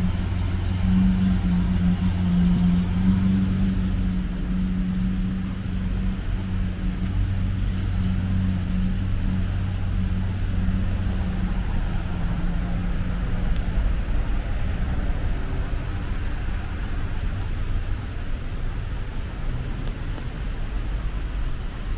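Road traffic on a wet street: a vehicle engine's steady low hum that fades out about two-thirds of the way through, over the constant hiss of cars and tyres on the wet road.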